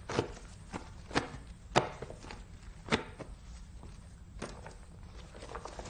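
Irregular light knocks and taps of objects being handled and set down while tidying a room, the sharpest two about two and three seconds in.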